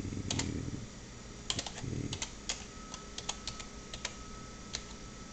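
Computer keyboard being typed on: irregular runs of key clicks, with low muffled bumps near the start and about two seconds in.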